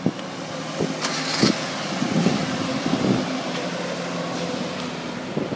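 Dongben mini pickup truck's engine idling steadily, with a few sharp clicks near the start and about one and one and a half seconds in.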